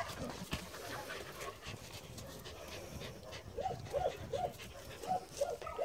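Dog panting faintly, then, about halfway through, a run of short high whimpers, roughly three a second.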